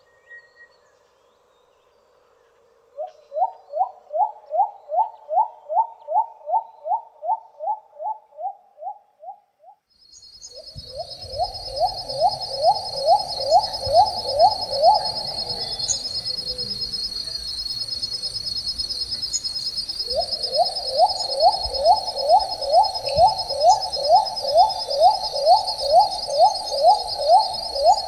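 Little cuckoo-dove calling: a long series of short, evenly spaced notes at about two a second, in three bouts. A steady high insect drone starts about ten seconds in and runs under the calls.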